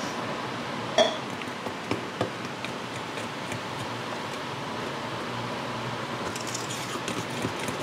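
Metal fork stirring pancake batter in a stainless steel mixing bowl: a sharp clink of metal about a second in, then light tapping and scraping against the bowl, over a steady background hiss.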